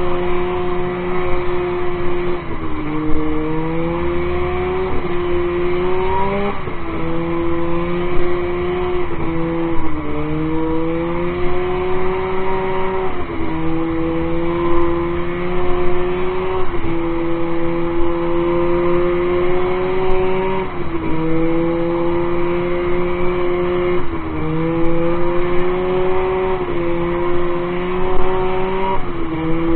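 1978 Polaris Gemini twin-cylinder two-stroke snowmobile engine running under way. Its pitch climbs slowly and drops back sharply about eight times as the throttle is eased and opened again.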